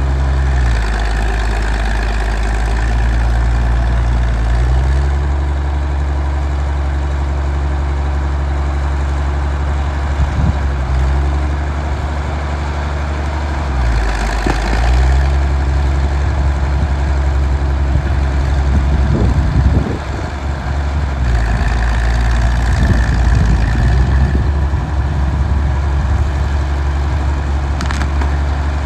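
1952 Caterpillar D6-9U crawler dozer's diesel engine running steadily, its pitch dipping several times as it loads up while pushing. About two-thirds through there is a stretch of rough crunching.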